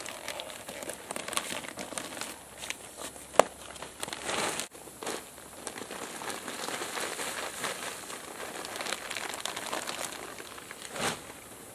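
Crushed pine bark mulch pouring out of a plastic bag onto the pot, the bag rustling and the bark chips landing in a dense spatter of small clicks, with one sharper tick about three seconds in.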